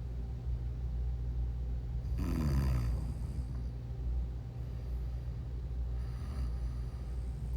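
A sleeping woman snoring, with one louder snore falling in pitch about two seconds in and a fainter one near the end, over a steady low hum.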